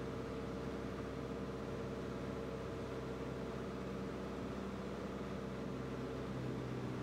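Light aircraft's piston engine and propeller running steadily in cruise, heard from inside the cabin as an even drone with a constant hum.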